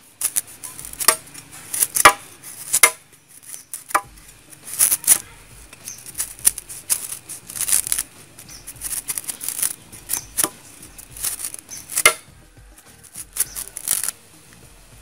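A large kitchen knife shaving and slicing the sheaths off a fresh young bamboo shoot. It makes irregular crisp cuts and scrapes, roughly one every second, as pieces of sheath split away.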